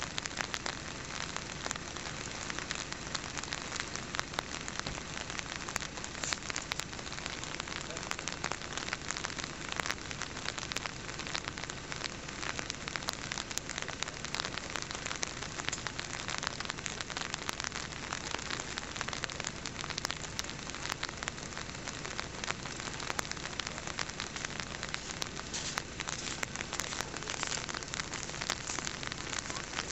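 Steady, dense patter of rain on a surface, thick with small crackling clicks.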